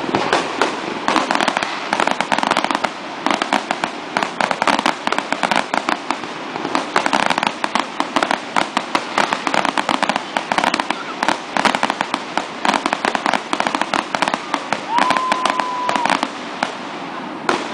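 Fireworks display: a rapid, continuous run of bangs and crackles from bursting aerial shells, many a second, easing off just before the end. A brief steady whistle sounds among them about three-quarters of the way through.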